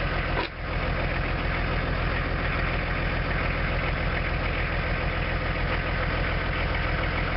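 1994 Volkswagen LT35 light truck's engine idling steadily.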